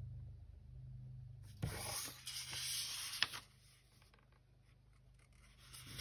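Paper rustling and sliding under hands on a tabletop for about two seconds, with a couple of light knocks, as a sheet is handled and folded; then only a low steady hum.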